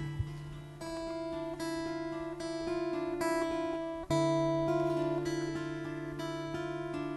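Acoustic guitar playing a slow intro: notes picked one at a time, about one every second, over a held bass note, moving to a new chord about four seconds in.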